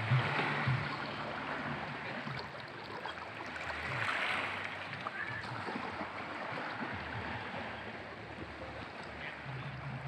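Small, calm sea waves lapping and washing against shoreline rocks in a steady rush, swelling slightly about a second in and again around four seconds in.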